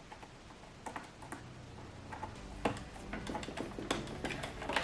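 Scattered small plastic clicks and taps as the side brush is fitted back onto a Roomba robot vacuum, with the sharpest clicks about three seconds in and at the end.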